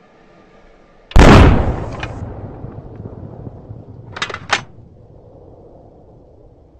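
A single sniper rifle shot about a second in, very loud and sudden, with a long echoing tail that dies away over a few seconds. Around four seconds in come two short, sharp clicks about a third of a second apart.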